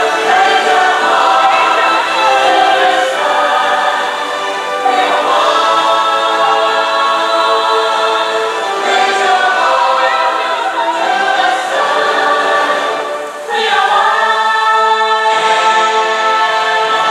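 Music in which a choir sings held chords, changing every few seconds, with a short dip about thirteen seconds in before a new chord swells up.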